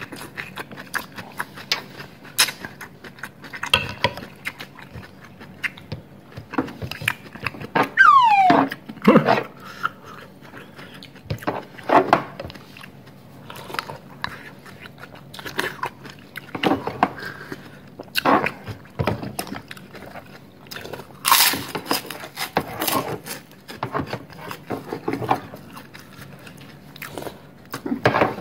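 Close-miked eating: slurping and chewing soto ayam noodles and broth, with a plastic spoon clicking against a small bowl, in scattered bursts. A short falling squeak sounds about eight seconds in.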